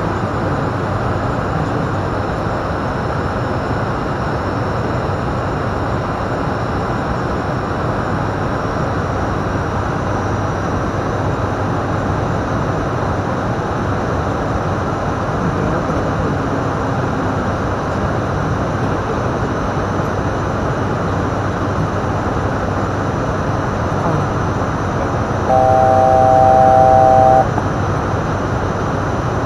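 ATR 42-500 turboprop cockpit noise: a steady roar of the engines and propellers with a constant low hum. About three-quarters of the way through, a steady electronic cockpit tone of three notes sounds for about two seconds.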